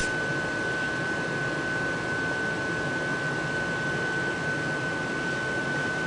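Steady hiss with a constant high-pitched whine and no distinct events: a continuous background noise such as a fan or the recording's own hum.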